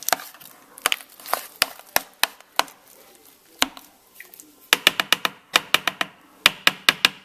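Irregular plastic clicks and taps from handling a Hamilton Beach food processor's plastic bowl and lid while the thick mixture inside is scraped around, turning into a quick run of clicks about five seconds in. The motor is not running.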